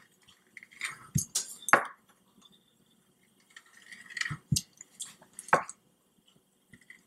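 Pizza cutter wheel rolling through dough on a cutting board: two runs of scraping, clicking strokes with a few dull knocks, about a second in and again after a short pause.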